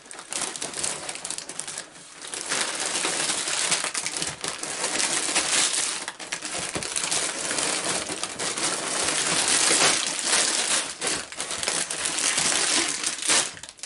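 Sealed plastic bags of Lego bricks crinkling and rustling as they are pulled and tipped out of a cardboard box onto a table, with many small clicks. It gets busier about two seconds in.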